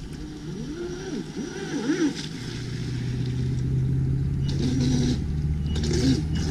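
Traxxas M41 RC boat's brushless electric motor running, its whine rising and falling in pitch with quick throttle changes, then settling into a steadier, louder drone.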